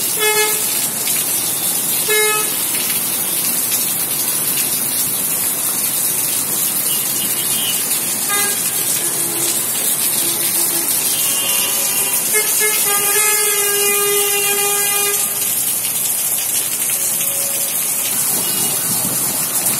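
Heavy rain falling steadily, a constant hiss. Vehicle horns honk from traffic below: short toots near the start, about two seconds in and about eight seconds in, and a longer stretch of honking from about eleven to fifteen seconds in.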